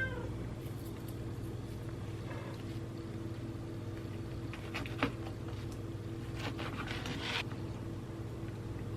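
Steady low mechanical hum, with a few faint soft clicks and rustles about halfway through and again a little later.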